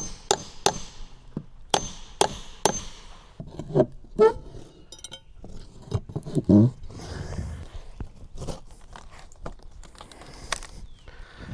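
Sharp knocks of wood and tools on boardwalk boards, about six in the first three seconds, then scattered clatter and scraping. Two short squeaks, about four and six and a half seconds in.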